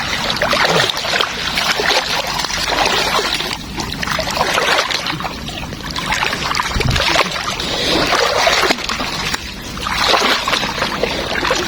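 Water splashing and sloshing in repeated surges, roughly every two seconds, as floodwater is stirred.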